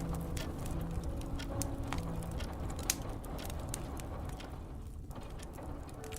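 Wood fire crackling in a fireplace: irregular sharp pops and snaps over a low rumble, one louder pop about three seconds in. Soft held notes of instrumental music fade out in the first two seconds.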